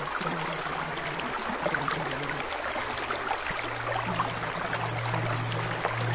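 Steady running-water noise like a babbling stream, under a low droning tone that drops in pitch a little before halfway and grows stronger toward the end.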